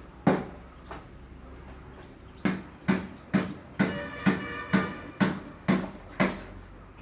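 Sharp knocks: two single ones, then a quick regular run of about nine at roughly two a second.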